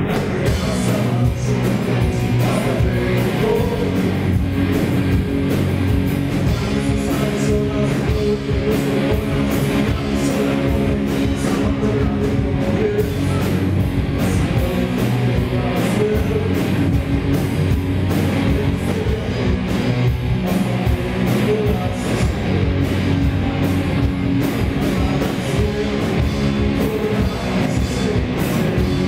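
Rock band playing live, with electric guitars, bass and a drum kit at a steady loud level.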